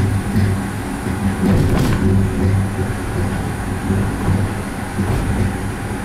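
Skyrail suspended gondola running along its elevated rail between stations, hauled by its moving cable: a steady running rumble with a pulsing low hum and a couple of faint clicks.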